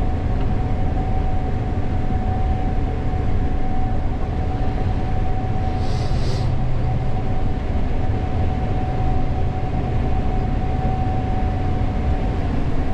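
Gleaner S98 combine running steadily, heard from inside the cab: a constant low drone with a steady whine over it. A brief high hiss comes about six seconds in.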